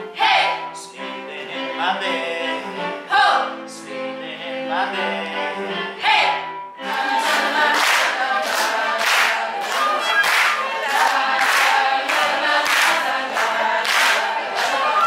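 A group of voices singing a song together on stage. About seven seconds in, the audience starts clapping along in time, about two claps a second, while the singing carries on.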